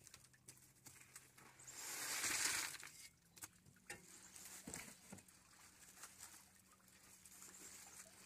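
A shovelful of concrete sliding into a cardboard form tube wrapped in plastic bags, heard as a brief rushing hiss about two seconds in. After it come a few faint knocks and rustling as the bag-wrapped tube is handled.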